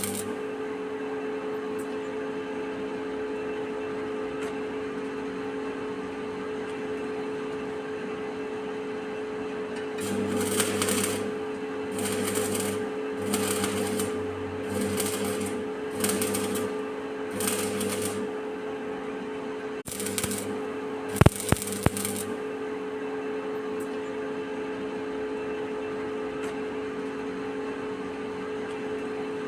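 Stick (manual arc) welding with a covered electrode: a welding machine hums steadily, and from about a third of the way in comes a run of about eight short bursts of arc crackle, each about a second long, with a few sharp clicks near the last of them.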